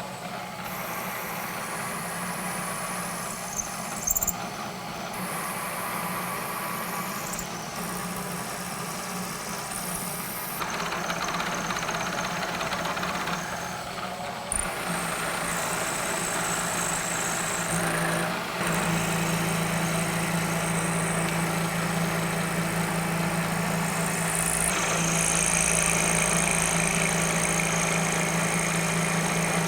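Milling machine running while cutting keyways into a shaft: a steady motor hum with a high cutting whine. The sound changes abruptly several times.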